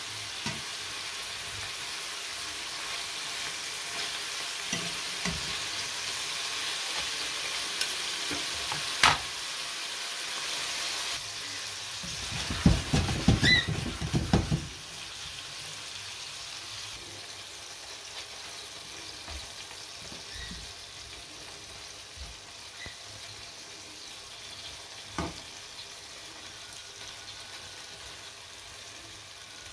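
Meatballs sizzling in oil in a frying pan. There are a few sharp clicks of a utensil against the pan, and a burst of louder knocking and clatter of the pan just before halfway through. The sizzle is quieter in the second half.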